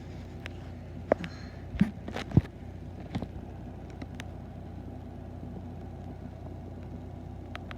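Steady low rumble, with a few short sharp knocks between about one and two and a half seconds in.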